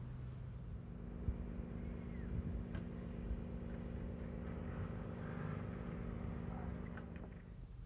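A vehicle engine running steadily, a low even hum with a few faint clicks; it eases off slightly near the end.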